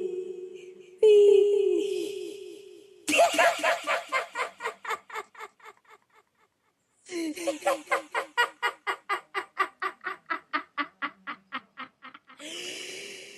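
A recorded human laugh edited with sound effects. Two held, slightly falling laugh tones come first, then the laugh is chopped into rapid, evenly repeated ha-ha pulses, about five a second, in two runs with a second of silence between them: the first run dies away, the second keeps an even level.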